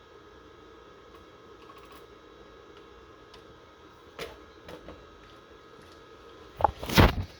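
A few light clicks over a faint steady hum, then a loud clatter of knocks near the end.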